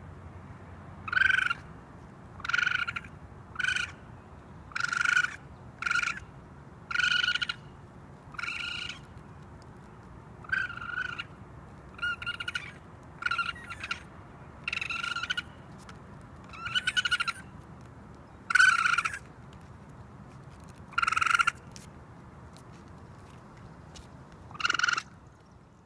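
Raccoon calling: a series of about fifteen high-pitched calls, each under a second long, coming every one to two seconds with a few longer pauses.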